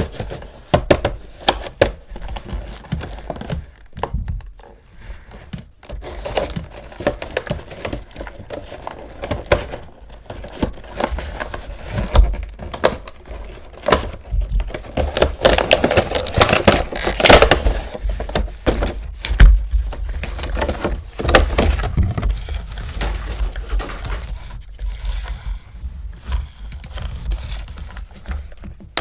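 Hands handling toy packaging and plastic toy parts: irregular clicks, taps and knocks with crinkling, busiest about halfway through.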